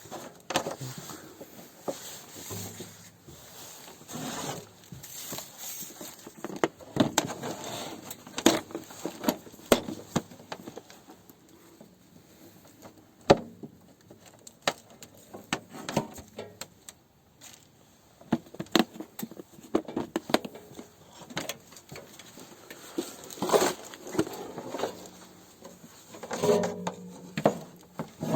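Irregular clicks, knocks and scrapes of things being handled and set down, with some rustling between them.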